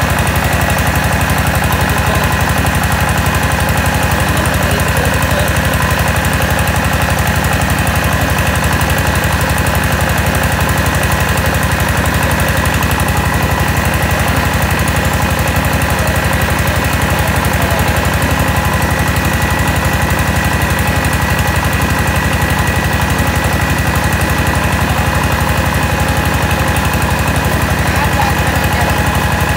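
Mobile rice huller and its engine running steadily while milling rice, a fast even pulse under a steady high whine.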